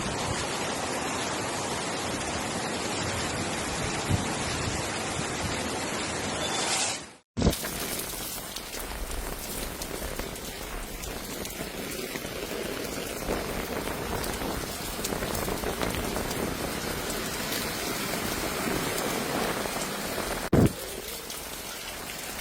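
Heavy rain falling as a steady hiss, cutting out briefly about seven seconds in and then resuming, with a single thump near the end.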